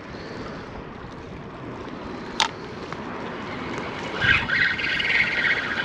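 Wind on the microphone over open water, with a single sharp click about two and a half seconds in; from about four seconds a spinning reel is cranked, a fast raspy whir of the line being retrieved after the cast.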